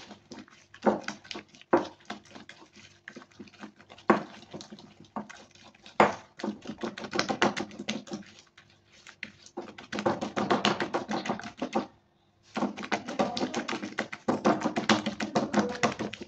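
Hand whisk beating an egg into a thick cake batter in a ceramic bowl: rapid clicking and tapping of the whisk against the bowl, in spells of brisk beating with a brief stop about twelve seconds in.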